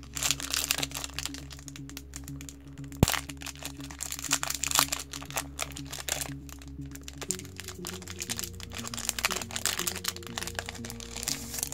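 Foil wrapper of a trading-card booster pack crinkling and tearing as it is ripped open by hand, with one sharp crack about three seconds in. Soft background music plays under it.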